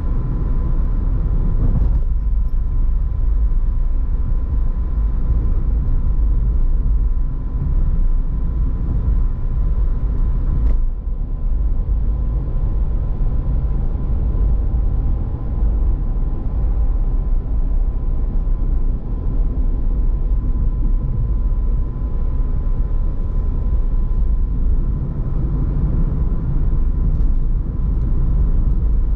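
Car driving through city streets, heard from inside the cabin: a steady low road and engine rumble, with a faint steady whine and a couple of light ticks.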